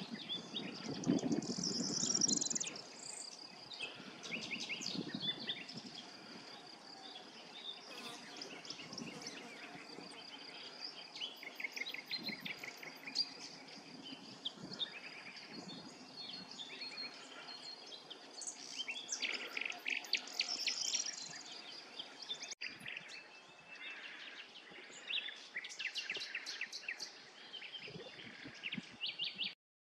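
Outdoor birdsong: small birds chirping and trilling again and again, over a steady thin high tone. There is a low rustling in the first few seconds.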